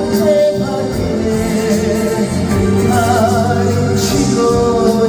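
Live performance of a Korean trot song: a male singer's voice over band accompaniment, heard through the concert hall's sound system.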